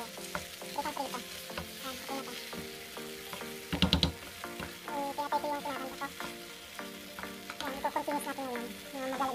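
Wooden spoon stirring and scraping a tomato and onion sauce as it sizzles in a frying pan, with one louder sharp knock about four seconds in.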